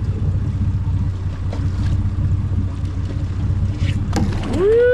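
Boat engine idling with a steady low rumble. A few sharp knocks come about four seconds in. Near the end there is a loud, long shout that rises in pitch, holds and falls.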